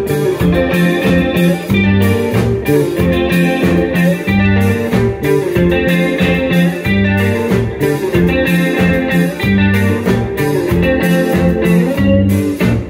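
Live band playing an instrumental passage: electric guitar melody over a repeating bass line, with drum and percussion hits keeping a steady beat.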